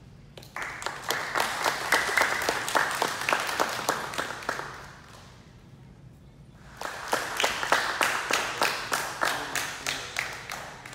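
Small audience applauding in two rounds of about four seconds each, with a short pause between, clapping for each student promoted at a jiu-jitsu belt ceremony.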